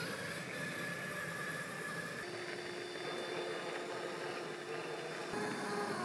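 Electric motor and geared drivetrain of an Axial SCX6 1/6-scale RC rock crawler whining at low speed as it crawls over rock, over a steady hiss. Near the end the whine rises in pitch.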